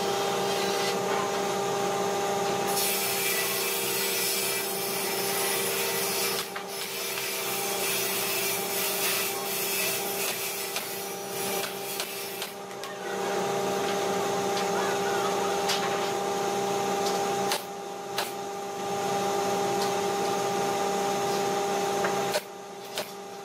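An air compressor runs with a steady hum while a pneumatic nail gun fires a few times into the pine cabinet frame with sharp snaps.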